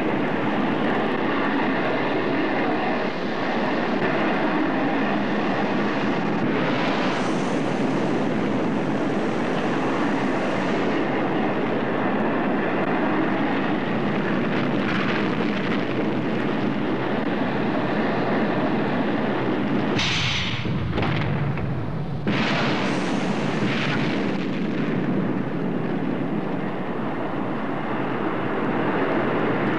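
Rocket roar of ICBMs lifting off from their silos, a continuous loud rushing noise. A sharper hiss swells twice, about a quarter of the way in and again around three-quarters in, and a deep rumble surges briefly about two-thirds in.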